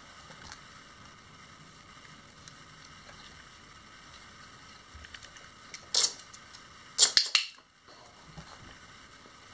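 Short, sharp plastic clattering from a dog's treat-dispensing toy as the dog works at it: one burst about six seconds in, then a louder cluster of three or four quick clacks about a second later.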